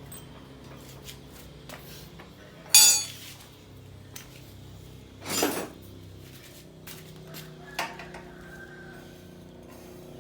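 Metal tools or parts clinking and clattering: a sharp clink about three seconds in, a longer clatter about halfway, and a smaller clink near the end, over a faint steady hum.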